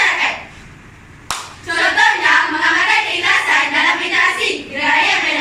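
A girls' group singing in unison with hand clapping. The voices break off for about a second near the start, a sharp click follows, and the singing resumes.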